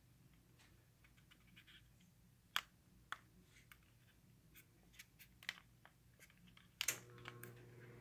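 Scattered light plastic clicks around a Spectrafire electric fireplace heater, then a louder click about seven seconds in, after which a steady low hum and an airy whir set in as the heater's fan starts running.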